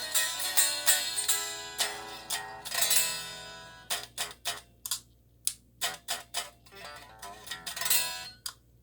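Les Paul-type electric guitar played through a small VOX Soundbox Mini amp. For about the first three seconds chords ring out; after that come short, choppy strums and notes with brief gaps between them.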